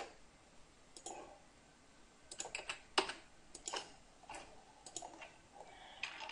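Computer mouse and keyboard clicking: about a dozen short, sharp clicks at irregular intervals.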